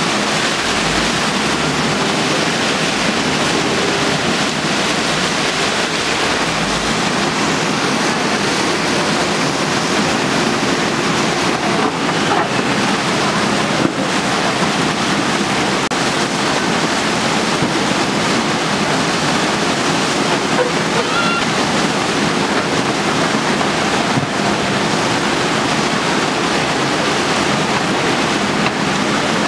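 Steady rushing of a muddy flash-flood torrent pouring through a street, with a faint steady engine hum from a JCB backhoe working in the flow underneath.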